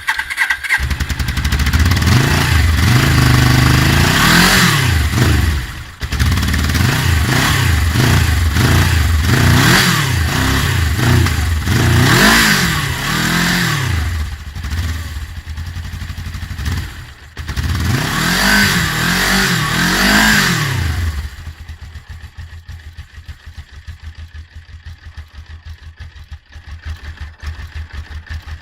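Suzuki GS 500 E carburetted parallel-twin motorcycle engine on its stock, original exhaust, revved in a series of throttle blips that rise and fall in pitch. A little over twenty seconds in it settles to a steady idle.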